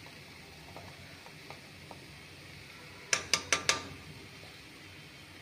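Faint steady sizzle of a tomato and spice masala frying in a stainless steel kadai, with a few light ticks, then four quick sharp metallic taps a little past the middle: a utensil knocking against the steel pan.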